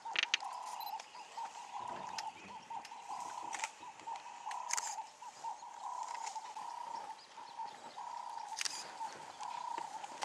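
Ambient bush sound: a steady high-pitched chirring chorus that warbles and pulses, with a few scattered sharp clicks and rustles.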